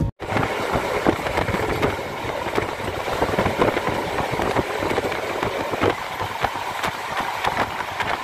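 Local electric (MEMU) train running along the track, heard from inside the coach: a steady rumble and rattle of wheels on rail, with many small knocks.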